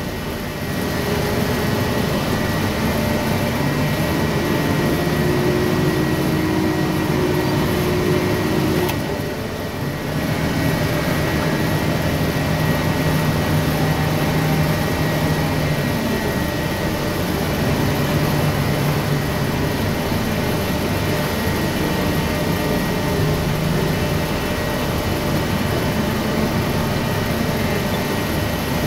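Large forklift's engine running, heard from inside the operator's cab as the machine is driven, its hum shifting in pitch with the throttle. The loudness dips briefly about nine seconds in.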